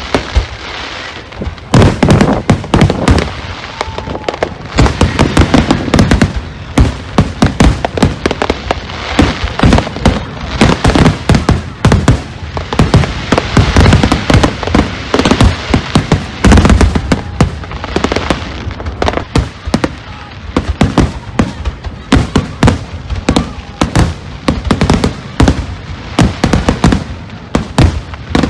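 Aerial fireworks going off in a rapid, dense barrage of bangs and crackles, many per second, starting about two seconds in after a quieter stretch.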